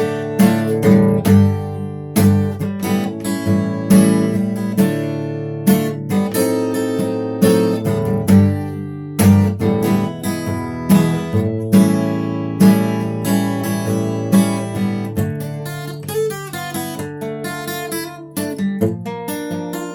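Acoustic guitar played solo without singing: rhythmic strummed chords with ringing notes.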